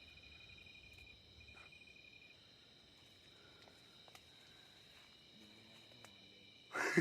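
Crickets and other night insects chirring steadily in several high pitches, one of them breaking off briefly about a second in. A short louder burst of noise comes just before the end.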